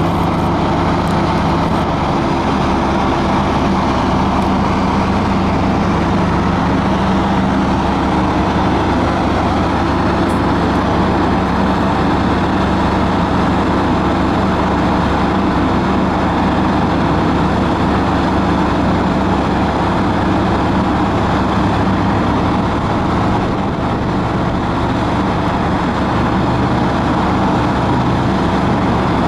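Diesel engine of a Cat 330BL track excavator, a six-cylinder Cat 3306, running steadily at a loud, even level, with a brief drop in level about four-fifths of the way through.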